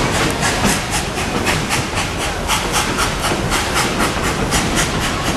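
Ride in an open passenger car behind a narrow-gauge steam locomotive: the exhaust chuffs in an even rhythm of about four beats a second over the low rumble and clatter of the cars on the track.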